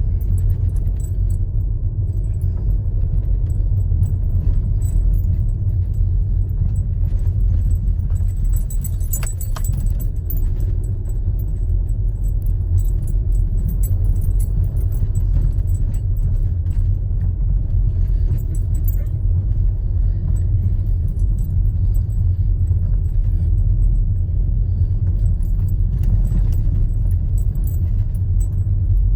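Car driving over a bumpy road, heard from inside the cabin: a steady low road rumble with light jingling rattles throughout.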